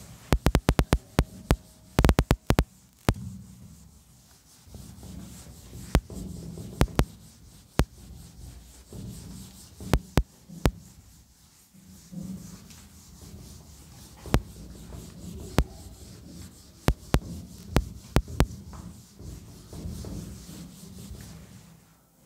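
A whiteboard duster rubbing across a whiteboard in repeated wiping strokes, erasing the board. Many sharp clicks and knocks sound over the rubbing, a quick run of them in the first three seconds and more scattered after.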